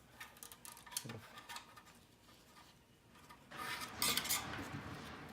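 Small plastic clicks and ticks from handling a car navigation unit's ribbon-cable connector latch. About three and a half seconds in comes a louder rubbing, scraping stretch that lasts about a second.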